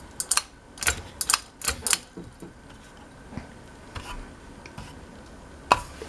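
Pull-chain switch of a Westinghouse Nova ceiling fan clicking as the chain is tugged: about six quick clicks in the first two seconds, then a few spaced ones and a sharp click near the end. The fan is not wired, so no motor runs.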